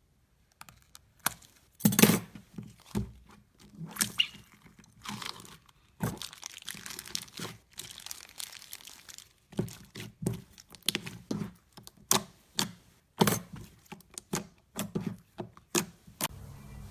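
Slime being pressed and squeezed by hand, giving irregular sharp crackles and pops, a few a second.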